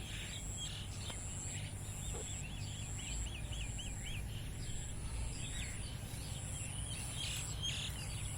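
Several birds chirping and calling, one giving a quick run of about eight repeated notes a couple of seconds in, over a steady high buzz and a low rumble.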